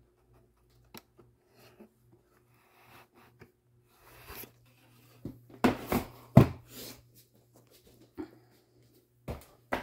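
Handling noises with scattered clicks and a few knocks and thumps on a hard surface, the loudest cluster about six seconds in and another thump near the end; a faint low hum comes and goes underneath.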